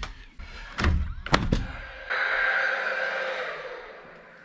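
Nail gun firing three nails in quick succession into 2x4 wall framing, about a second in. A steady hissing sound follows from about two seconds in and slowly fades.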